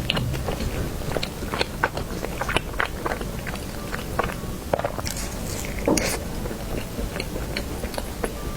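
Close-miked eating: biting and chewing soft chestnut Basque cake, with many small, irregular wet mouth clicks and one louder bite about six seconds in.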